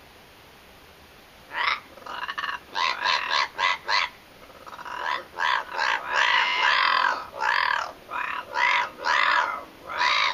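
Amazon parrot chattering in a quick string of short, raspy squawks, starting about a second and a half in and packed most densely in the middle.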